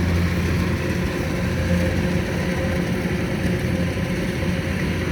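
Rice combine harvester's engine running steadily, an even low drone.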